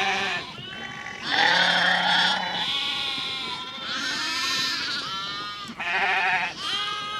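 A flock of sheep bleating at feeding time, many loud, wavering calls one after another and overlapping.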